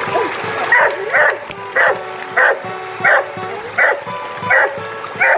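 A dog barking repeatedly, about eight barks spaced a little over half a second apart, over background music.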